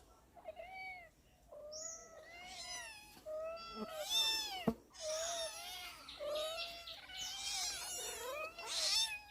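Several domestic cats meowing over one another in a near-continuous string of rising and falling meows, the typical calling of cats waiting to be fed. A single sharp click about four and a half seconds in.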